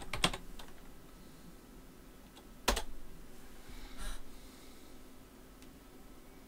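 Computer keyboard typing: a few quick keystrokes in the first second, then one louder sharp click about two and a half seconds in and a softer knock about a second later, over a faint steady hum.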